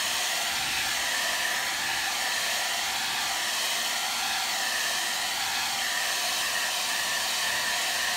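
Handheld hot-air blower running steadily, a continuous rush of air with a faint steady whine, blowing over freshly painted leather to dry the paint.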